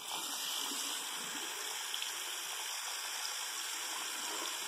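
Bathroom sink tap running steadily, the stream of water hitting a fabric trouser leg and splashing into the ceramic basin.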